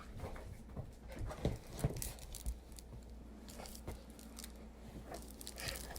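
A dog playing with a toy: scattered light taps, scuffles and rustling, louder for a moment about a second and a half to two seconds in.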